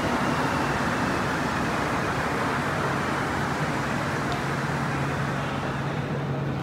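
Rubber-tyred Montreal Metro train running in the station: a steady rumble and hiss with a low hum, the hiss easing off near the end.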